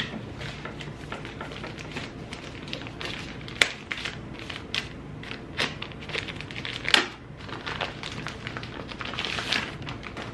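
Plastic packaging crinkling and rustling as items are unwrapped and handled, with scattered small clicks and two sharper knocks, about three and a half and seven seconds in.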